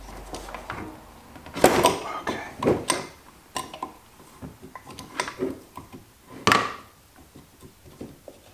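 Steel wrenches clinking and knocking against the crank handle's nut and the metal grinder housing as the handle is taken off, with tools set down on the bench. There are scattered sharp knocks, loudest about two seconds in and again near the middle.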